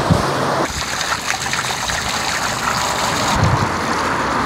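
Surf and wind for a moment, then a steady hiss of water spraying down onto bare feet in flip-flops and splashing on concrete, as at a beach rinse-off shower.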